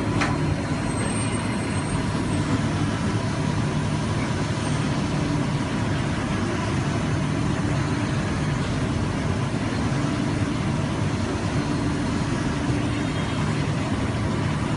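Gildemeister MF Sprint 65 CNC lathe running, a steady mechanical hum with a constant low drone and no change in pitch.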